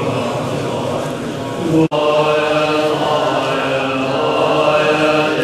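Tibetan Buddhist monks chanting together in low, held voices. The sound drops out for an instant about two seconds in.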